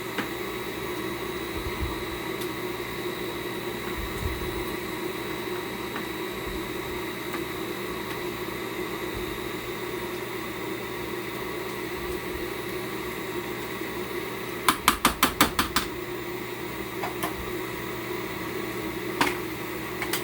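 A steady hum of a kitchen fan runs throughout. About three-quarters of the way in comes a quick run of about six sharp taps, about five a second, and near the end a single sharp knock.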